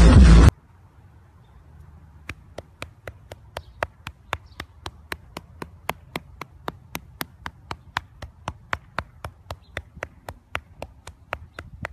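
A hand patting a lion cub's belly in a steady rhythm, about three pats a second, over a faint low hum. It opens with a split second of loud electronic dance music that cuts off abruptly.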